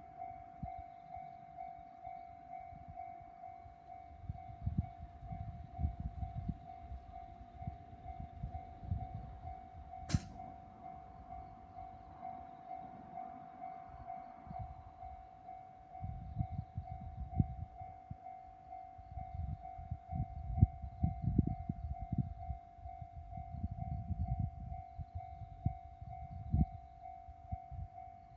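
Japanese level-crossing warning bell ringing steadily in a fast even pulse, the signal that a train is approaching. Irregular low rumbles come and go underneath, heaviest in the second half, with one sharp click about ten seconds in.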